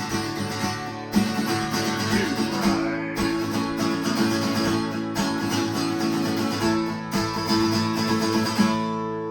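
Acoustic guitar playing the closing instrumental passage of a folk song. Near the end it stops on a final chord that rings out and fades.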